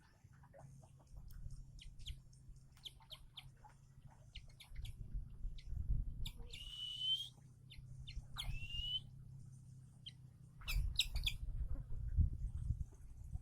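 Eagle chick calling: short scattered chirps and two drawn-out, rising squealing calls, one about six seconds in and one about eight and a half seconds in. Low rumbling noise, louder in the second half, runs underneath.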